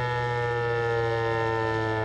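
Federal Signal 508 outdoor warning siren sounding a chord of several tones that slowly falls in pitch.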